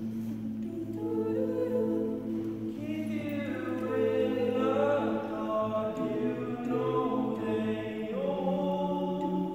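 A cappella vocal group singing slow, sustained chords without instruments. A low bass note is held under the chord while higher voices come in about three seconds in, and the harmony changes near the end.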